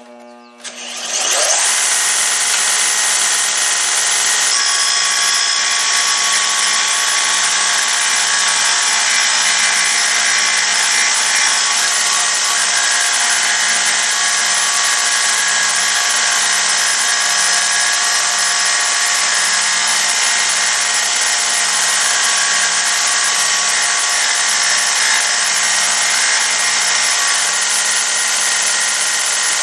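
Bench combination belt-and-disc sander switched on about a second in, spinning up and then running steadily. The end of an air gun barrel is held square against the sanding disc and slowly turned, facing the muzzle flat at 90 degrees.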